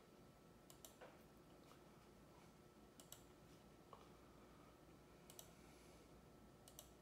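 Faint clicking of a computer mouse, a few quick pairs of clicks a second or two apart, over near-silent room tone.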